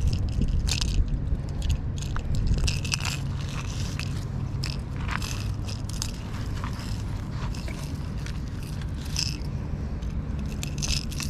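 Short scrapes and clicks of metal fishing pliers, a metal lure and its hooks being handled on a concrete ledge, scattered irregularly over a steady low rumble.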